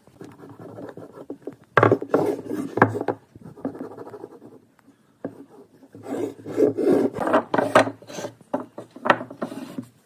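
A hand tool rubbing and scraping against wood in quick, uneven strokes: lighter at first, then two busy runs of strokes with a short pause near the middle.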